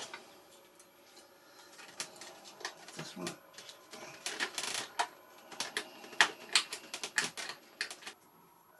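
Irregular small clicks and taps, in loose clusters, from needle-nose pliers and a plastic clevis being worked onto the end of a pushrod.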